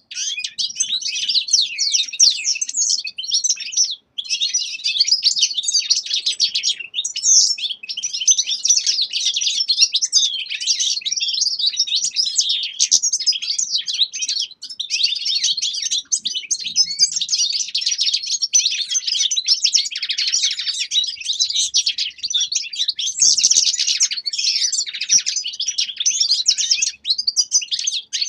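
Caged finches singing, a dense, fast twittering song that runs on almost without break, pausing briefly a few times.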